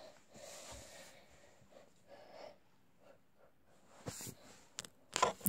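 Faint breathing and handling rustles close to the microphone, then a few short sharp clicks and knocks in the last second and a half.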